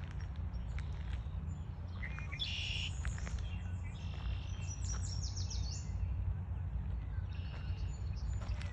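Small songbirds chirping and singing in short buzzy trills, a few in a row about a third of the way in, in the middle and near the end, over a steady low rumble.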